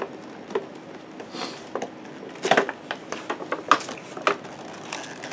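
Cardboard box and plastic packaging being handled and opened by hand: scattered crinkles, taps and clicks, busiest and loudest a little past halfway.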